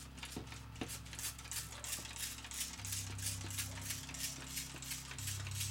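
Plastic hand trigger sprayer squeezed over and over, each squeeze a short hiss of spray, about three a second, misting seed potatoes with a liquid treatment.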